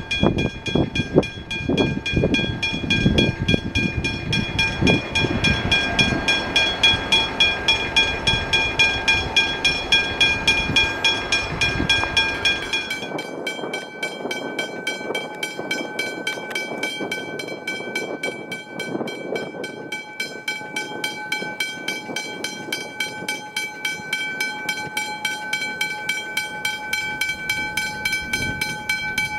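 Westinghouse hybrid railway level-crossing bells ringing with rapid, even strokes, each stroke leaving a steady ringing tone. About 13 seconds in, the sound changes to a different crossing's bell with a slightly different ring. Low rumbling and knocks sit under the first bell.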